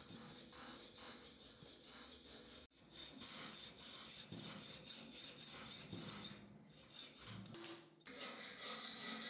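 Hand filing of a small metal part clamped in a bench vise: rapid, even rasping strokes back and forth, breaking off briefly twice.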